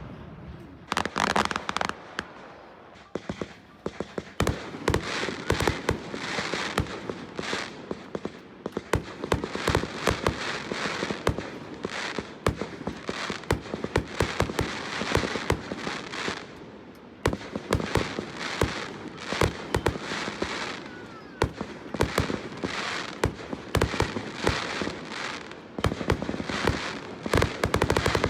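Fireworks show at close range: a continuous run of sharp shell bursts, many in quick succession, with crackling in between.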